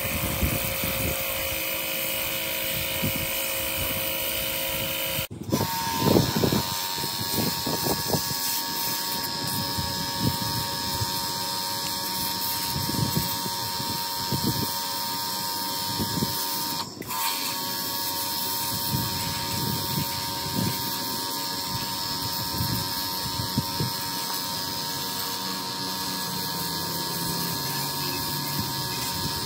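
High-pressure washer running steadily, its pump motor whining at a fixed pitch while the water jet hisses against concrete blocks. Brief breaks come about five and seventeen seconds in, after which the whine settles at a slightly different pitch.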